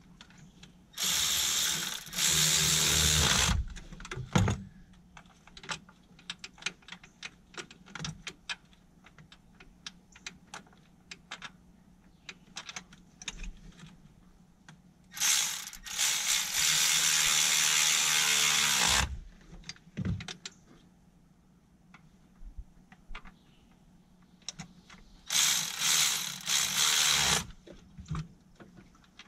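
Cordless electric ratchet running in three bursts of two to four seconds, with a steady motor whine, driving a fastener on a Ford 4.6 V8 during spark plug work. Scattered short clicks fall between the bursts.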